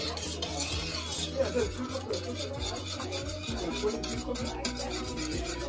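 A metal spoon stirring sugar into water in a stainless steel saucepan, a gritty scraping against the pan bottom with occasional light clicks; the sugar is not yet dissolved.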